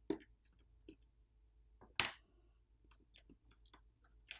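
Small plastic and metal clicks and ticks as a pry tool and fingers lift the main board out of a Samsung Galaxy S24 FE's mid-frame. There are two sharp clicks, one at the start and a louder one about two seconds in, with lighter ticks between and a quick run of clicks near the end.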